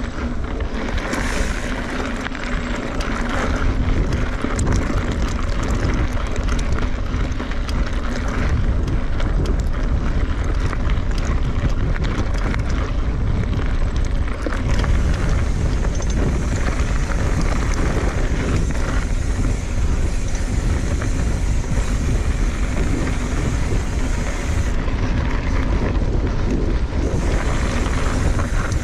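Wind rushing over a chest-mounted action camera's microphone as a 2017 Kona Honzo hardtail mountain bike rolls along a dirt singletrack, with steady tyre noise and many small rattles and clicks from the bike.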